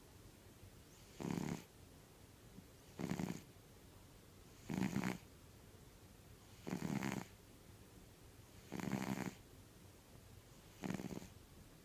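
Domestic cat snoring heartily in deep sleep: six snores, one about every two seconds, each roughly half a second long.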